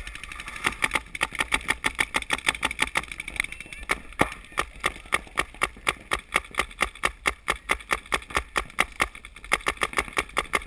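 Paintball marker firing in a steady rapid string, about five shots a second, with one louder shot about four seconds in.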